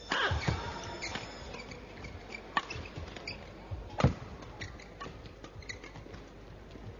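Badminton rally: rackets strike the shuttlecock several times, with the sharpest hit about four seconds in. Players' shoes squeak and patter on the court mat between the hits.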